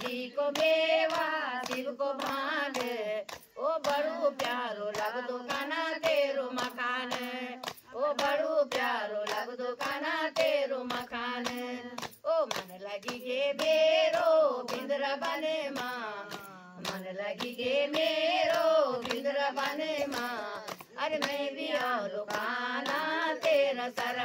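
Women singing a Hindu devotional kirtan bhajan together, unaccompanied, with rhythmic hand-clapping keeping time at about two claps a second.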